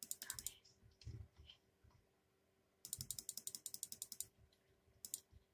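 Faint bursts of rapid clicking, about ten clicks a second, from buttons or keys being pressed in quick succession: a short burst at the start, a longer run of about a second and a half in the middle, and a brief burst near the end.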